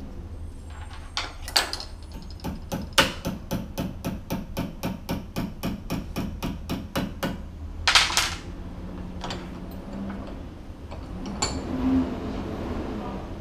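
Hammer tapping a small metal chain link: a couple of single blows, then a steady run of quick taps at about four a second for some five seconds, and one louder blow about eight seconds in.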